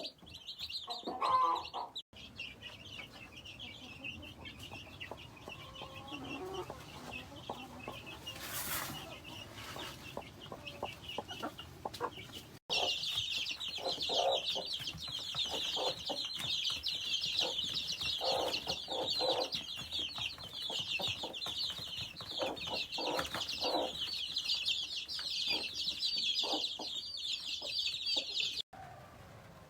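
A brood of chicks peeping nonstop in a high-pitched chorus while a hen clucks repeatedly in short, lower calls. The peeping cuts off abruptly a few times and is louder from about halfway through.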